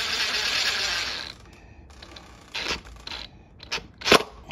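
Screw being driven into the lock hardware with a driver: a loud, dense ratcheting whir that stops about a second in, then a few separate clicks and knocks, the loudest near the end.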